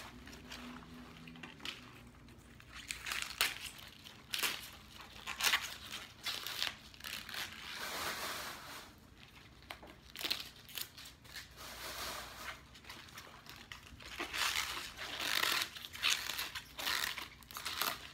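Fresh collard green leaves rustling, crinkling and tearing as they are handled and picked over by hand, in irregular bursts with a few sharp crisp snaps.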